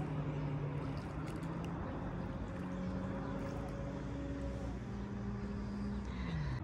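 A low motor drone, likely a passing boat engine, holding a steady hum that shifts up in pitch a couple of times and drops off near the end.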